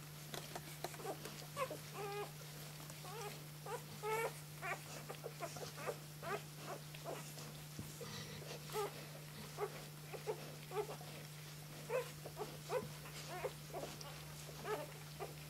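Three-day-old flat-coated retriever puppies squeaking and squealing while suckling, with many short, high calls, some rising or falling in pitch, coming every fraction of a second. A steady low hum runs underneath.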